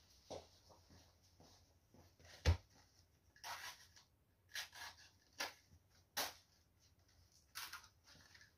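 Scattered short rustles and clicks of large florist's leaves being handled and folded, about five of them, with one dull thump about two and a half seconds in.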